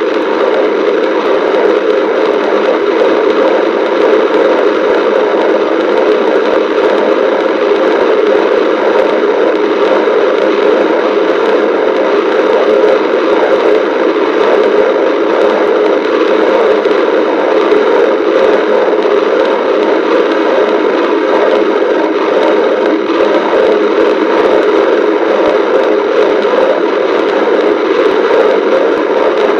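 A person's stomach growling, picked up close and loud: an unbroken, crackly gurgling rumble that stays at a steady level.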